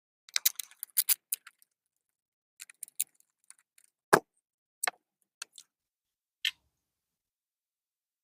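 Small sharp clicks and rattles of keyless-entry door lock parts being handled while the lock is taken apart: a quick flurry of clicks at the start, then single clicks every second or so, the loudest about four seconds in.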